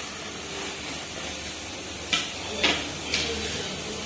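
Onions and tomatoes with spice powders frying in oil in a pressure cooker, a steady sizzle, with three knocks and scrapes of a metal spoon against the pot about two to three seconds in.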